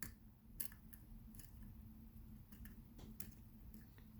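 Faint, scattered ticks and clicks, about seven in four seconds, from a lock pick working the pins of a pin-tumbler lock under tension.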